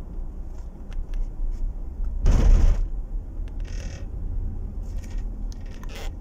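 Cabin noise of a 2009 Chevrolet Tahoe slowing down: a steady low engine and road rumble with a few faint clicks, and a brief louder rumble about two seconds in. No clunk or knock from the transmission as it shifts down, which the driver judges to be normal.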